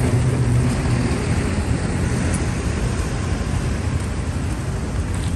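Steady street traffic noise: a continuous low rumble of motor engines passing by.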